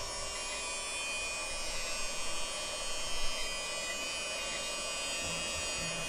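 Small USB-powered handheld vacuum cleaner running with a steady high whine from its little electric motor, with a few light knocks partway through.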